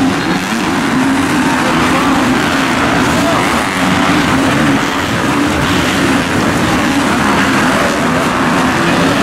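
Several motocross dirt bikes racing, their engines revving up and down continuously as they work around the track.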